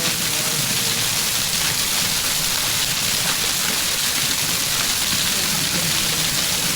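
Waterfall rushing: a steady, even hiss of falling water with no change in level.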